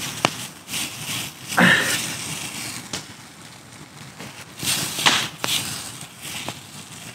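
A wood campfire crackling with sharp pops, and boots crunching through dry leaf litter, loudest about a second and a half in and again around five seconds in.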